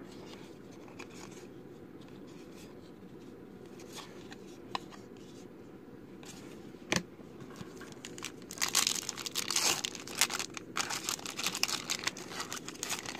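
Quiet handling of trading cards with a few light clicks, then from about eight seconds in a trading-card pack's wrapper being torn open and crinkled, a dense crackling rustle.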